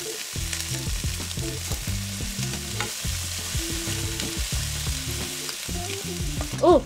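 Broccoli sizzling in a hot oiled pan as it is tipped in and then stirred with a wooden spatula; the sizzle runs steadily throughout, with scraping from the stirring.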